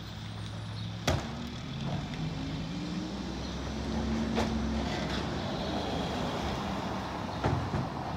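Mack MR rear-loader garbage truck's diesel engine idling, then revving up and easing back down over several seconds, as the engine speeds up to drive the packer. Three sharp knocks come about a second in, in the middle, and near the end.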